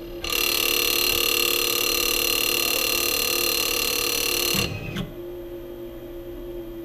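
CNC 6040 router's stepper motors whining steadily as an axis jogs for about four seconds, then stopping abruptly with a short low thump, over the steady hum of the running spindle.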